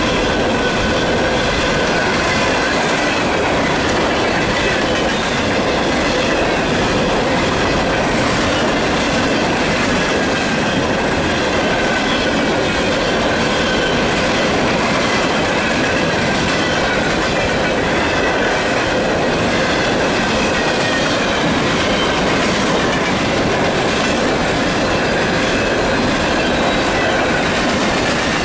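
Loaded freight hopper cars rolling past close by, their steel wheels clacking over the rail joints in a steady rhythm. A wavering high-pitched squeal from the wheels on the rails runs on top.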